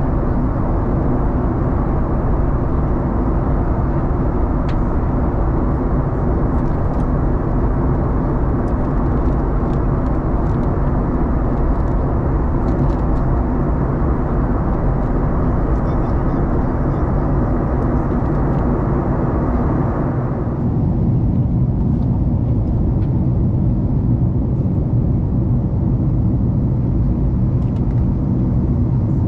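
Cabin noise of a Boeing 737 MAX 9 in flight, heard from a window seat beside its CFM LEAP-1B engine: a steady rumble with a hum of engine tones under rushing air. About twenty seconds in, the upper hiss drops away suddenly and the low rumble grows a little.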